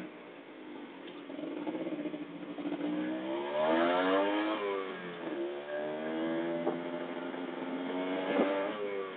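Kawasaki Ninja motorcycle engine revving under way, its pitch climbing to a loud peak about four seconds in, dropping sharply, then rising again before easing off near the end.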